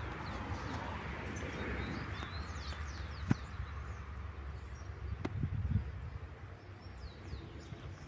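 Birds chirping, many short quick high notes, over a low outdoor rumble and a hiss that fades over the first few seconds. A single sharp click about three seconds in.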